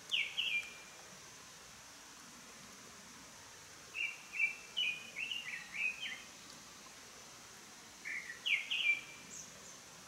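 A small songbird singing three short phrases of quick, slurred whistled notes, about four seconds apart, over a steady background hiss.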